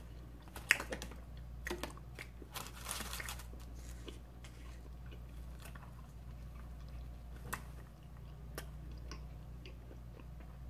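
Person biting and chewing a piece of stromboli close to the microphone, with irregular sharp mouth clicks and smacks.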